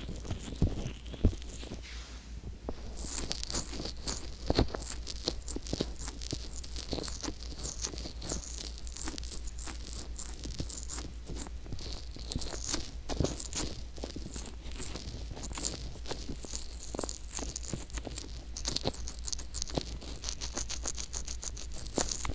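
Fingertips rubbing and pressing on the silicone ear of an ASMR microphone, heard right at the ear as close crackly rubbing and rustling with many small clicks. A few sharper knocks come in the first couple of seconds as the hands cup over the ear.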